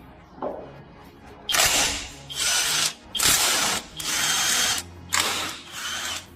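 Power drill run in about six short bursts with brief pauses, starting a second and a half in: a cordless driver undoing fasteners as the motorcycle is taken apart.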